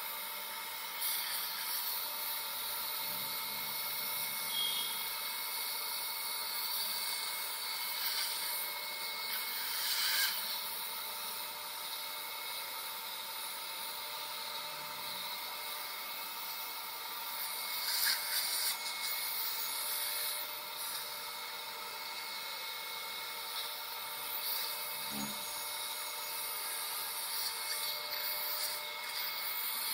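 Dental surgical suction hissing steadily, with a few steady whistling tones and a couple of brief louder surges.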